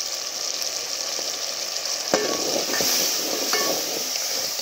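Onions, tomatoes and green chillies frying in hot oil with freshly added ground spices, a steady sizzle, while a steel ladle stirs them in an aluminium pot, clicking against the pot a few times.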